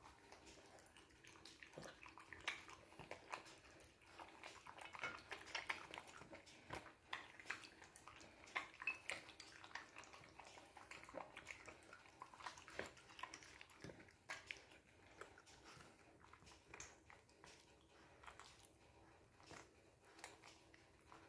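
Small dog eating dry food from a porcelain plate: faint, irregular crunching and clicks of teeth and food against the plate, thinning out near the end.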